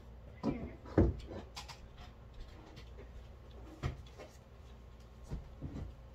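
Scattered knocks and taps of canvases and painting supplies being handled on a tabletop, the loudest about a second in.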